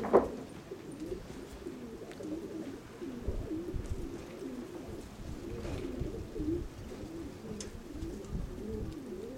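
Domestic pigeons cooing over and over, several birds overlapping, with low gusts of wind buffeting the microphone. A short knock right at the start is the loudest sound.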